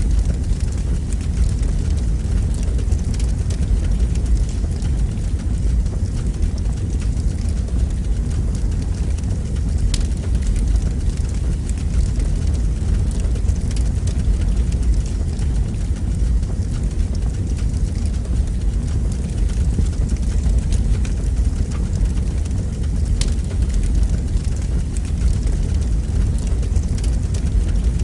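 Fire burning with a steady low rumble and a few sharp crackles.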